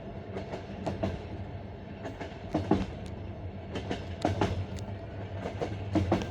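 Passenger-coach wheels clattering over the rail joints of jointed (bolted) track, the classic clickety-clack. Groups of sharp knocks come about every one and a half to two seconds over the steady rumble of the moving train.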